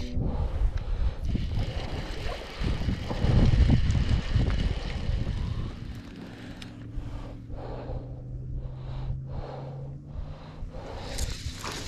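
Wind rumbling on the microphone, loudest a few seconds in. In the second half it is quieter, with a faint steady low hum and soft swishes about every half second.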